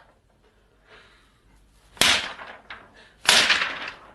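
A pen struck against a sheet of paper, a foley trick for film gunshots: two loud, sharp cracks just over a second apart, the first about two seconds in, with a lighter tap between them.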